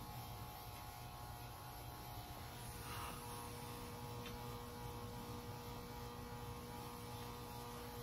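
Faint steady hum holding a few fixed tones, with no clear clicks or knocks.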